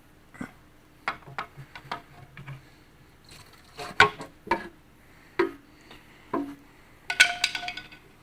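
Hand tools clinking and knocking against metal engine parts: about a dozen sharp, separate clinks, with a quick run of ringing clinks near the end.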